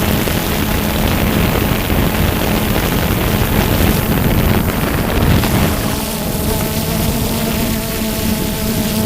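DJI Phantom 2 quadcopter's motors and propellers humming steadily in flight, with a rushing wind noise on the microphone. From about two-thirds of the way in the rush eases and several steady higher tones of the rotors stand out.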